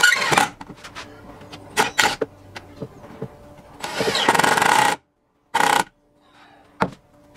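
Cordless drill running in short bursts as it drives screws into the wooden frame, the longest burst about a second long about four seconds in, followed by a sharp knock near the end.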